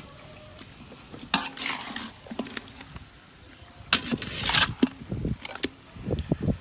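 Metal spatula scraping and knocking against a large steel wok as chunks of pork head in sauce are turned over. A sharp knock comes about a second in and another near four seconds, each followed by a short scrape, then a few lighter taps.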